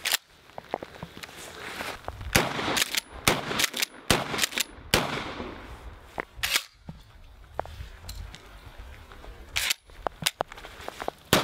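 Pump-action shotgun firing: a string of about a dozen sharp blasts at uneven spacing, several close together a few seconds in and a few more spread out later.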